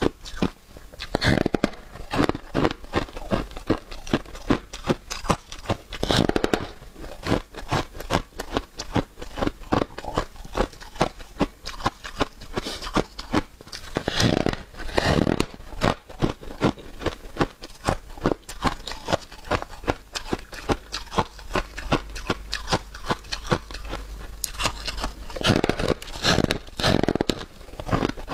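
Close-miked ASMR chewing of flaky freezer frost: continuous fast, crisp crunching and crackling. Louder crunches of fresh bites come about a second in, about six seconds in, around fourteen seconds in, and twice near the end.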